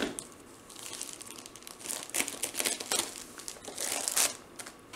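Clear plastic sleeve around a rolled diamond-painting canvas crinkling in short, irregular crackles as it is handled and cut open with scissors.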